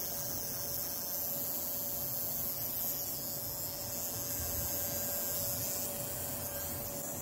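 Car fuel injector's solenoid buzzing steadily as a function generator pulses it with a square wave at about 180 Hz on a 5 V supply, still opening and closing at this rate.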